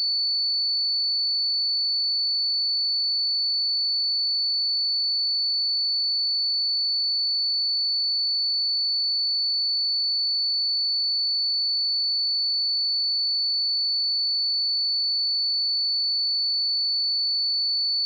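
Pure 4474 Hz sine wave test tone: a single high-pitched tone held steady at constant level.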